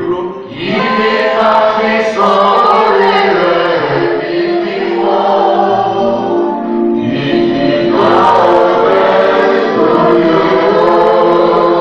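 Church choir and congregation singing a gospel hymn, loud, with long held notes.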